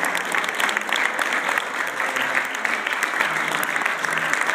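Audience applauding steadily: many hands clapping together in a dense, continuous patter.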